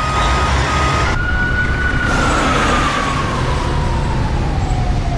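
Street traffic noise with a single siren-like tone that, from about a second in, glides slowly and steadily down in pitch.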